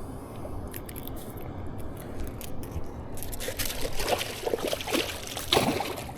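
Water splashing and sloshing as a walleye is let back into the stream, with small splashes and drips that build into a flurry in the second half.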